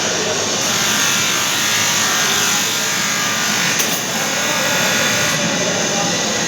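Argon (TIG) welding arc on aluminium, buzzing steadily without a break.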